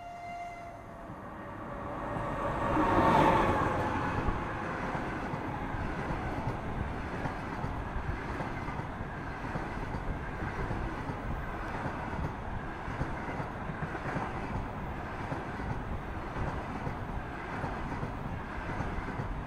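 EP20 electric locomotive hauling a passenger train passing close at speed, loudest about three seconds in as the locomotive goes by. After that comes the steady rumble of the coaches' wheels on the rails as they roll past.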